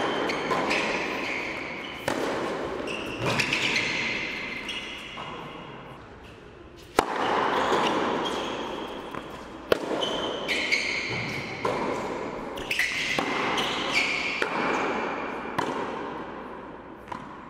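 Tennis rally on an indoor hard court: sharp racket strikes and ball bounces echoing around a large hall, with short high sneaker squeaks on the court between shots.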